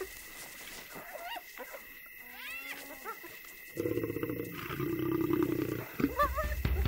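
Spotted hyenas giving short rising-and-falling squeals and whoops. From about four seconds in, a lioness growls low and steadily at them. Near the end a deep rumble comes in under more hyena cries.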